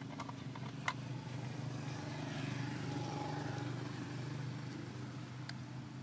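Road traffic: a motor vehicle's engine with a steady low hum, and a passing vehicle swelling and fading about halfway through. A sharp click about a second in.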